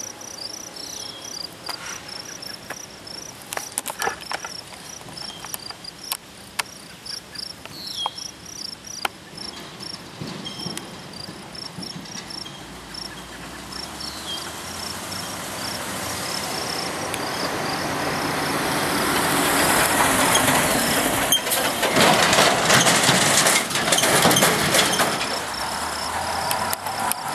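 High, regular insect chirping, joined from about halfway by the rising rush of an approaching freight train that grows loud near the end.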